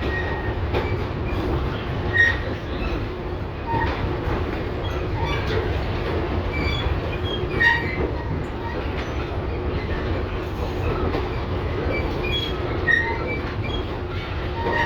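LVS-2009 tram running along the track: a steady low rumble of wheels on rail, with short wheel squeals and clicks about 2, 7.5 and 13 seconds in.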